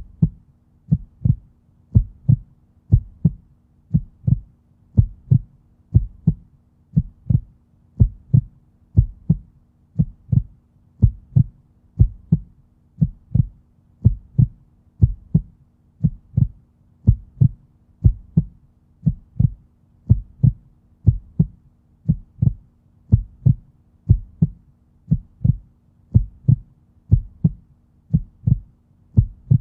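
Heartbeat, a steady lub-dub double thump about once a second.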